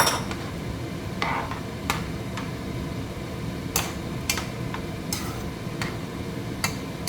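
A metal spoon clinking and tapping against a cooking pot: about a dozen sharp taps at uneven intervals as cornflour is spooned in and stirred to thicken the boiling vegetable broth.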